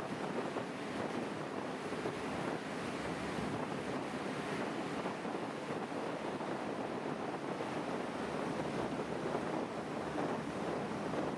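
Strong wind buffeting the microphone over the steady rush of water churned up in a boat's wake.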